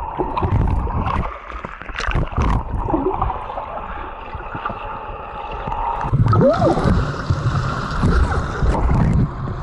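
Muffled water sloshing and gurgling as a Labrador retriever swims and paddles in a pool, heard underwater, with a brief rising-and-falling tone about six seconds in.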